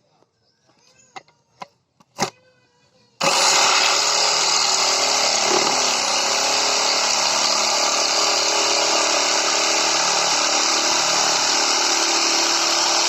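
A few handling knocks, then about three seconds in a mains-powered tool switches on abruptly and runs loud and steady under load for about ten seconds.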